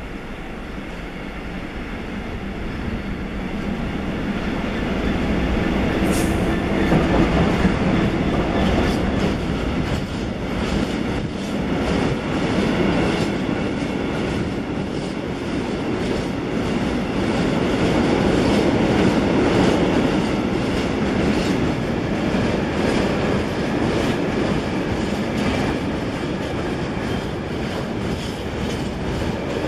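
A locomotive-hauled freight train of covered steel wagons approaches and passes close by. The sound grows louder over the first few seconds as the locomotive nears, then settles into a steady rumble with the rhythmic clatter of wagon wheels on the track.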